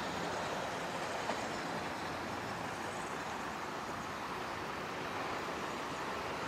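Steady, even rushing vehicle noise with no distinct engine note, and one small click about a second in.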